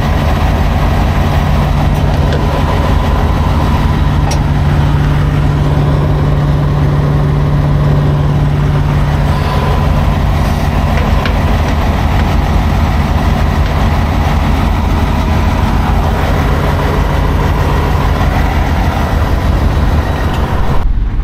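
Semi truck's heavy diesel engine running steadily with a low, even hum that drops away near the end.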